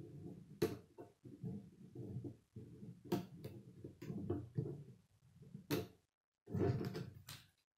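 K'nex plastic rods and connectors being handled and pressed together, with about half a dozen sharp plastic clicks as pieces snap into place over a low rubbing and clattering of parts.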